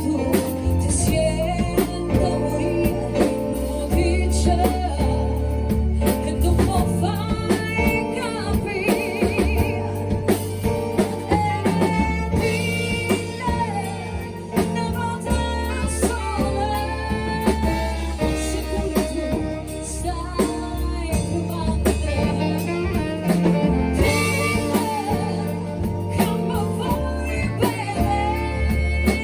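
A live band playing a song with a lead vocal, over a steady bass line and regular drum hits.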